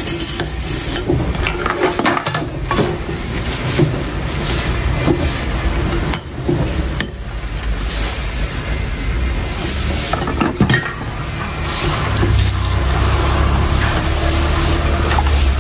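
Dishes being hand-washed in a stainless steel sink: ceramic mugs, plates and a steel pot clinking and knocking against each other, with tap water running more steadily near the end.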